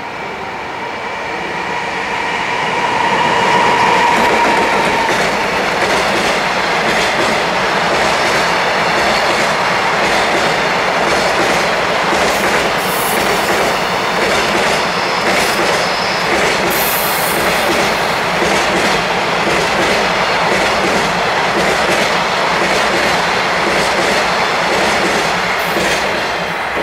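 Freight train hauled by an EF210 electric locomotive passing through the station without stopping. The locomotive and a long string of container wagons roll by, growing louder over the first few seconds, holding steady as the wagons pass, and falling away at the end as the last wagon goes by. A couple of brief high squeals come near the middle.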